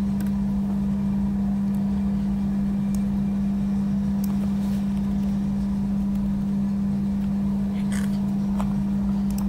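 A steady low hum, one unchanging tone with a rumble beneath it, with a few faint computer mouse clicks.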